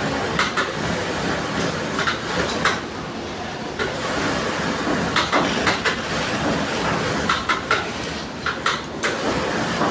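Leather-glove sewing work: a steady mechanical hum, with scattered groups of sharp clicks several times.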